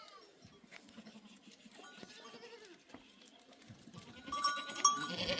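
Sheep and goats bleating, a few calls at a time, growing louder about four seconds in.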